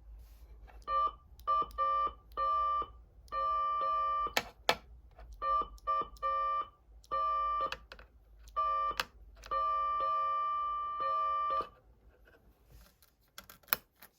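Patlite siren amplifier sounding a steady electronic tone in on-off bursts of uneven length, some short blips and some held for a second or two, with sharp clicks between them.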